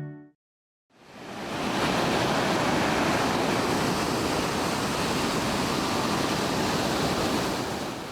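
Ocean surf, a steady wash of breaking waves that fades in about a second in and fades out near the end.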